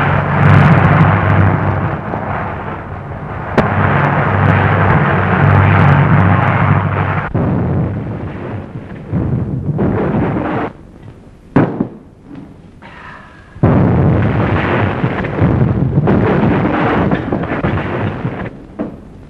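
Storm sound effects of an old film soundtrack: loud crashes and long rolls of thunder with rushing wind and rain noise. Sharp new claps break in about three and a half seconds in and again around eleven and a half and thirteen and a half seconds, with a quieter lull between about eleven and thirteen seconds.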